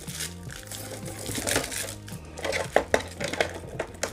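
Thin clear protective film crinkling as it is peeled and handled off a plastic RC truck body shell, with a few sharp clicks of the plastic about two-thirds through. Background music with a steady bass line runs underneath.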